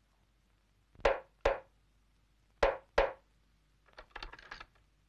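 Two pairs of sharp wooden knocks, then a quick flurry of lighter taps near the end, as a cue before a take begins.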